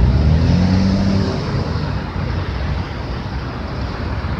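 Steady low rumble of road traffic, with wind buffeting the microphone; a vehicle engine's hum stands out briefly in the first second or so.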